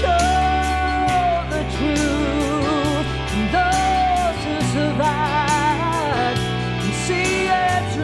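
Rock ballad band music: a wavering lead melody with vibrato over steady bass notes, guitar and regular drum hits.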